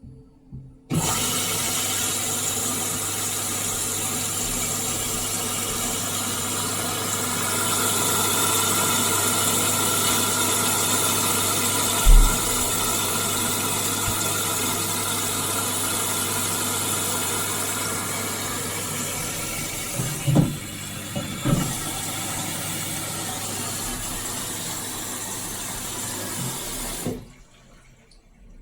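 Indesit IWSC 51051 washing machine's drain pump running, with a steady hum and water rushing through it as the drum empties before the spin. It starts suddenly and cuts off suddenly shortly before the end, with a single knock partway through and a few short thumps a little after it.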